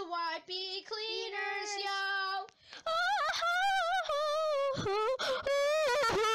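A high-pitched voice singing a short jingle. It starts as a run of short, even notes, breaks off briefly, and from about three seconds in carries on as a longer line that wavers in pitch.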